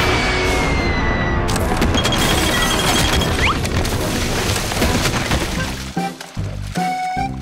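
Cartoon sound effects: a descending falling whistle slides down over the first second and a half into a long, loud crash and rumble of a huge impact. About six seconds in, the crash gives way to bouncy background music with a beat.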